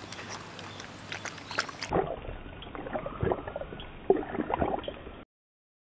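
A Shiba Inu lapping water from a stainless steel bowl: repeated wet laps and splashes of the tongue in the water, a few per second. The sound cuts off suddenly near the end.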